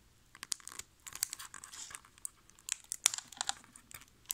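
A metal Poké Ball collector's tin being handled and prried open by hand, with irregular light clicks, scrapes and crinkling.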